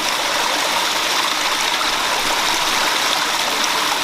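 Small waterfall, water rushing steadily over rock.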